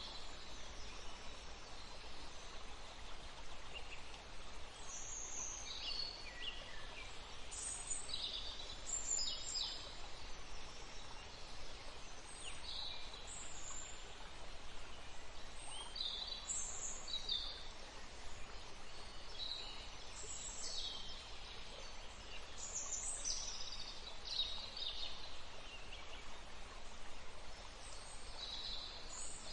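Forest ambience of small songbirds: short high chirps and trills come every second or two over a steady faint hiss.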